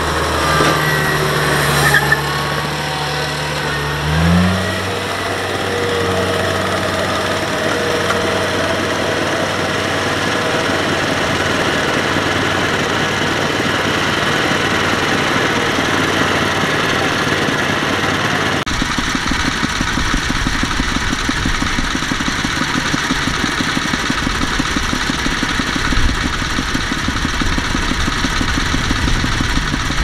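Kubota DC-70 combine harvester running steadily as it crawls on its tracks through a muddy rice paddy, its engine speeding up about four seconds in. About two-thirds of the way through, the running turns deeper and rougher.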